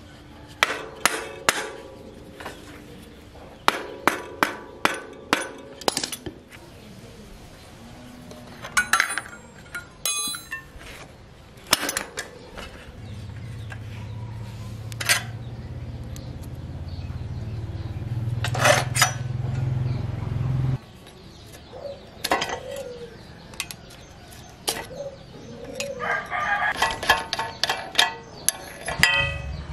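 Steel spanners and bicycle parts clink and knock as a bicycle is taken apart by hand. A low steady hum builds through the middle and cuts off suddenly, and a rooster crows near the end.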